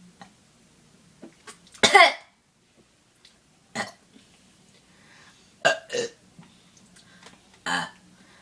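People burping after drinking carbonated pop: one loud burp about two seconds in, dropping in pitch, then several shorter burps spaced a second or two apart.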